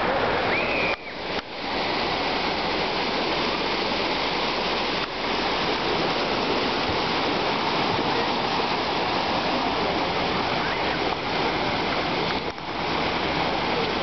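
Steady rush of floodwater as a car ploughs through it, its bow wave and wake splashing, with brief dips in the noise about a second in and near the end.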